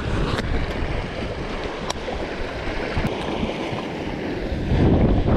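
Wind buffeting the microphone over water lapping against a small inflatable skiff, with a few faint clicks. A louder gust comes in near the end.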